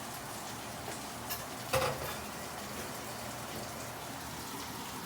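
Steady hiss of rain falling, with a short click a little after one second in and a brief louder sound just before two seconds in.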